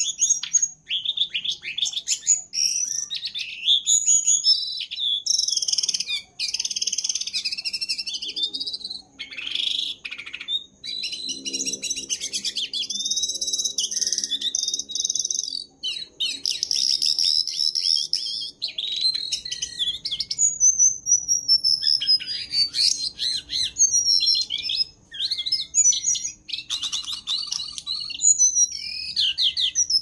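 A caged jongkangan songbird singing steadily and vigorously (gacor): a continuous, varied stream of whistled phrases and quick trills, with a fast run of falling notes about two-thirds of the way through.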